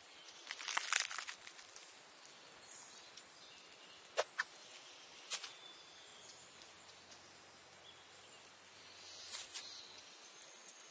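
Foley of a mouse nibbling and scrabbling at a mushroom cap: a short scratchy burst about a second in and again near the end, with a few sharp clicks in between, over a faint outdoor ambience.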